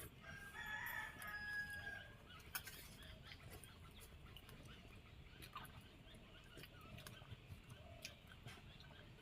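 A rooster crowing once, faintly, for about two seconds near the start, followed by a sharp click and a few small scattered clicks.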